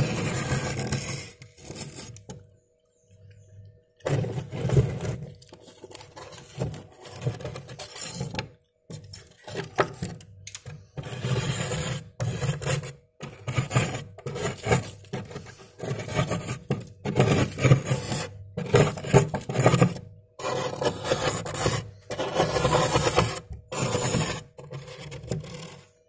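Steel spoon scraping thick frost in an old freezer compartment, in repeated uneven strokes with short pauses between them.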